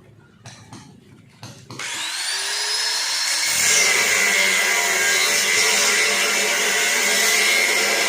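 A few faint clicks, then an angle grinder spins up about two seconds in, its whine rising and levelling off, and runs loud and steady as it cuts into metal pipe.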